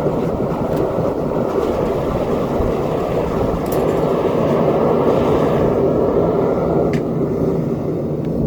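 Devil Forge gas burner firing a foundry furnace, a loud steady rushing noise while the copper melts, with a couple of faint clicks.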